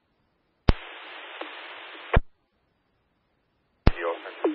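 Police scanner radio: a click opens an empty transmission of steady radio hiss with no voice, which cuts off after about a second and a half with another click. After a short silence, a third click near the end opens the next transmission.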